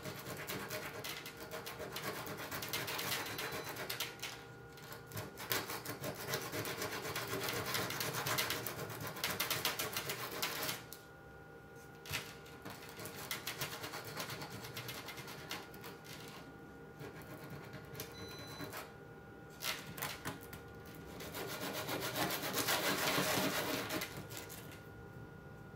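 A small strip of painted plastic rubbed back and forth by hand on a sheet of sandpaper, a scratchy run of quick strokes as the paint is sanded off. The sanding drops away for several seconds after about ten seconds, with only a few light ticks, then picks up again near the end.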